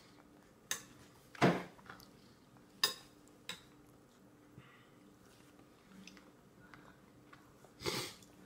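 Plastic spoon knocking and scraping against a stainless-steel bowl in a few scattered clinks, with the loudest, longer scrape about a second and a half in and another near the end.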